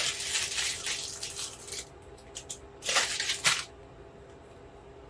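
Plastic candy bag crinkling as gummy frogs are shaken out onto a metal tray, a rustle for the first couple of seconds and a second, louder one about three seconds in.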